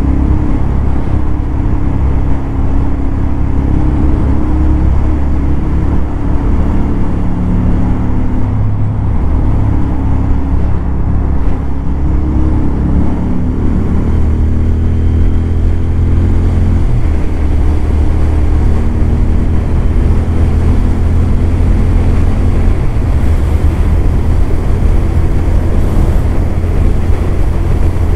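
Royal Enfield 650 parallel-twin motorcycle engine running steadily under way at highway speed. About halfway through, the engine note dips, then climbs again over a couple of seconds.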